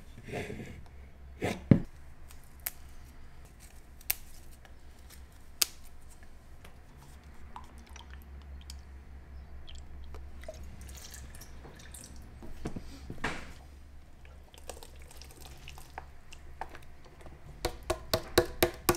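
Kitchen handling sounds from a plastic blender jug and containers on a wooden counter: scattered clicks and knocks, a sharp knock about two seconds in, and thick soup and milk pouring, with a flurry of clicks near the end. A low steady hum runs underneath.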